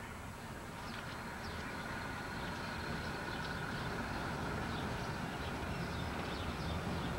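Car driving slowly along a street, a steady low engine and road rumble heard from the moving car, growing slightly louder.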